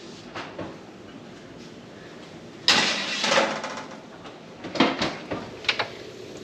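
Kitchen handling noise: a short scraping rush a little over two and a half seconds in, then a few sharp clicks and knocks near the end.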